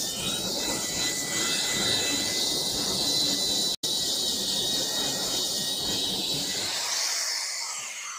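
Corded electric polisher fitted with a sanding disc, running as a rotary sander and grinding against the painted steel side of an old metal cabinet, stripping the paint: a steady high motor whine over a rough scraping noise. About seven seconds in the disc is lifted off the metal and only the spinning motor is left.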